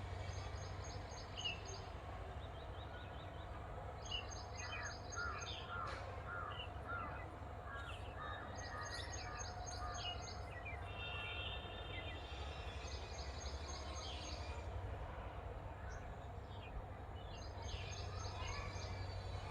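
A bird's call, a short phrase of rapid high chirps, repeating about every four seconds over a steady low hum.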